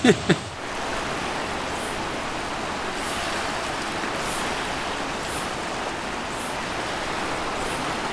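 Steady rush of a fast-flowing, glacier-fed river.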